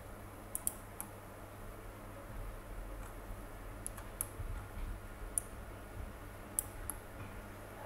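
Sharp, isolated clicks of a computer mouse and keyboard, about eight at irregular intervals, over a faint steady low hum.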